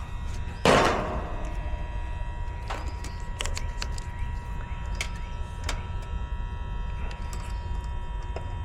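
Hands and tools working on an air-conditioner condenser: one loud metallic clank about a second in, then scattered light clicks and taps. A steady low hum with a faint high whine runs underneath.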